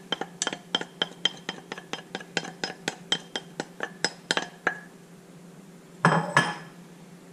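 Wooden spoon tapping and scraping against a ceramic plate, quick light clinks about four times a second as shrimp are knocked off into a skillet. The clinks stop a little before five seconds in, and a short clatter follows about six seconds in.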